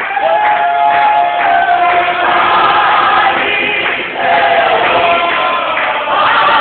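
Gospel choir singing, several voices holding and bending sustained notes together.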